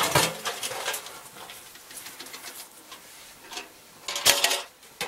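Galvanized steel ash can and its metal inner pail clanking and scraping as they are handled: a sharp clank at the start with about a second of rattling and ringing after it, then another burst of clanks about four seconds in.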